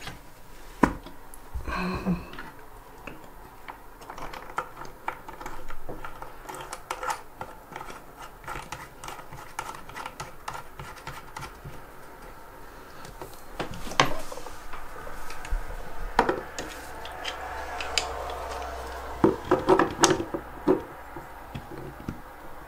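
Irregular light clicks and taps of small metal and plastic faucet parts being handled and fitted, with a few sharper knocks, as a bathroom sink faucet is reassembled around a new cartridge.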